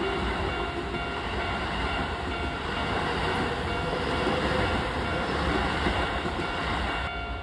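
Keio Line commuter train passing through a level crossing: steady, loud wheel-on-rail running noise with some clickety-clack.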